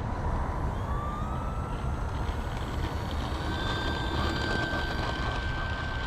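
Electric motor and propeller of an FMS 1500mm Cessna 182 RC plane whining, the pitch climbing gradually over the first few seconds and then holding steady. Heavy wind rumble on the microphone underneath.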